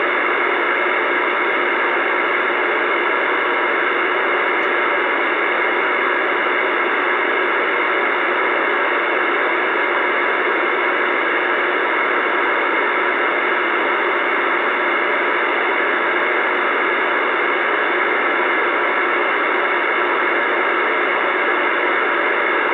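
Steady static hiss from a Uniden Bearcat CB radio's speaker, with the channel open and no one talking.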